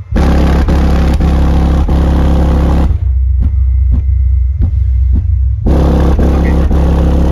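Two Skar DDX 10-inch subwoofers in a ported box, driven by a Taramps Smart 3K amplifier, playing deep bass very loud, hard enough to shake the box across the floor. A distorted buzzing and rattling sits above the bass. It drops out about three seconds in while the bass carries on, and returns about five and a half seconds in.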